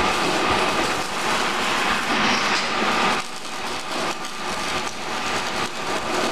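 MIG wire-feed arc welding crackling steadily as a steel mesh fence panel is welded; the arc stops about three seconds in. After that come a few lighter metal knocks as the panel is handled.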